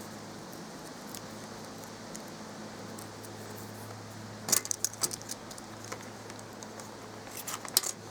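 Light clinking and tapping of small hard objects being handled, in a short cluster about halfway through and again near the end, over a steady low hum.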